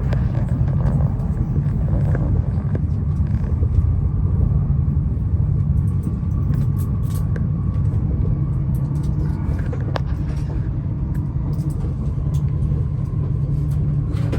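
Steady low rumble of a Tohoku Shinkansen train running, heard inside the passenger cabin, with a faint steady hum above it and a light click about ten seconds in.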